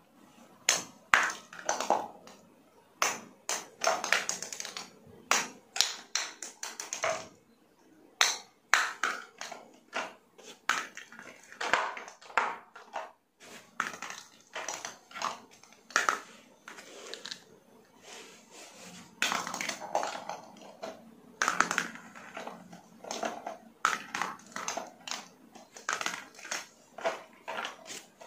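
Small hollow plastic balls dropping, bouncing and knocking together on a mat, a quick, irregular run of sharp clicks and clacks with short pauses between bursts.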